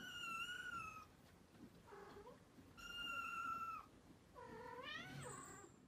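Kittens mewing: three long, high-pitched mews of about a second each, the third lower and rising in pitch, with a short faint one between the first two.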